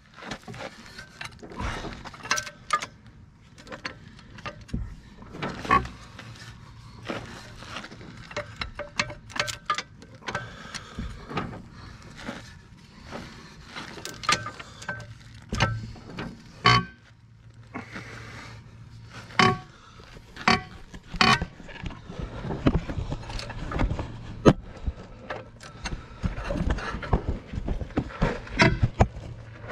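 Scattered metallic clinks and knocks of hand tools on the International 1066's rear dual wheel hub and its wedge bolts, coming at irregular intervals. A faint steady low hum runs underneath from about six seconds in.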